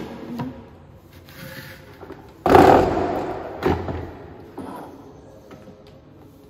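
Plastic blender jar full of peeled beans set down onto the blender base with a loud thump about two and a half seconds in, followed by a lighter knock about a second later.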